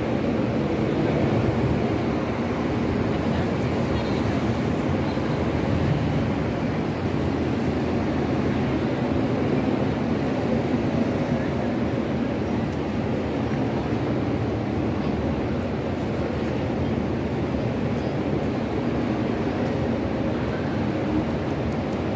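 Steady busy city street ambience: a crowd's mingled chatter over a constant wash of street noise.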